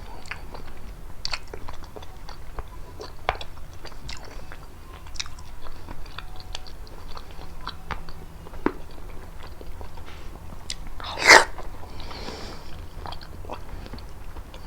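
Close-miked chewing and biting of prickly pear fruit: many small, irregular wet mouth clicks, with one louder, brief burst about three quarters of the way through.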